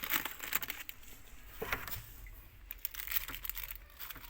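Plastic bags rustling and crinkling in scattered bursts with small knocks, as someone rummages through them searching for something.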